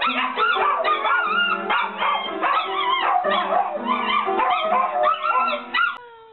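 A dog howling and yowling while pressing piano keys with its front paws: jumbled, clashing piano notes under wavering howls, all stopping abruptly near the end.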